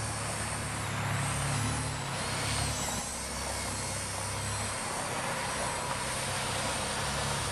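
Blade mCP X micro collective-pitch RC helicopter in flight, its small electric motors giving a thin high whine that wavers up and down in pitch as it manoeuvres, over a steady background rush.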